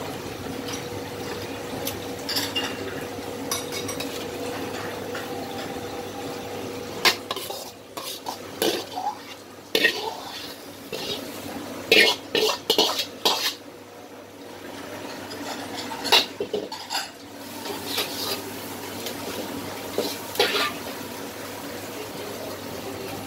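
Metal ladle scraping and clanking against a wok as the mala stir-fry is scooped out, a run of sharp clanks clustered through the middle stretch. Under it a steady background hum with a faint tone.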